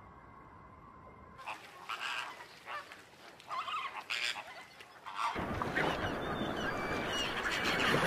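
A flock of flamingos honking. At first the calls come one at a time; from about five seconds in they swell into a loud, dense din of many birds calling at once.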